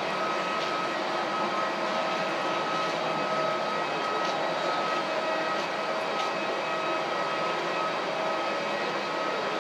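Steady airport ambience: a continuous mechanical hum with a steady high whine and a few faint ticks.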